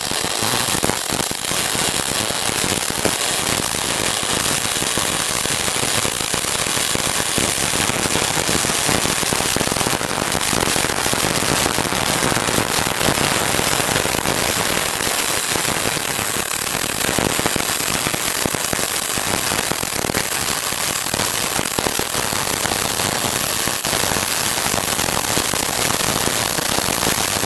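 MIG welding arc of a Multimig 265 welder running a bead on aluminium with aluminium wire at about 230–240 A: a steady, unbroken crackling hiss.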